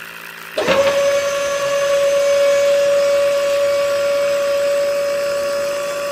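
Small brushed DC hobby motor switching on about half a second in and running with a steady high-pitched whine.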